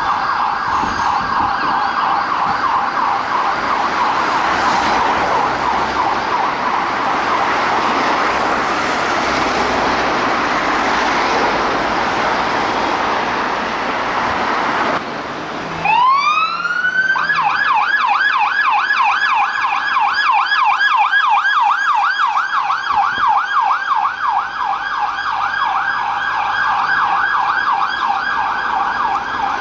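Police car siren on a rapid yelp, its pitch sweeping quickly up and down, with traffic noise under it. About halfway through the sound cuts, and a siren starts with a rising wail that goes straight into a fast, clear yelp.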